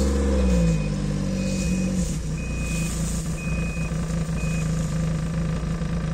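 Snowmobile engine revving briefly and then running on steadily, while its reverse-gear warning beeper sounds about once a second, stopping about four and a half seconds in: the machine is backing up.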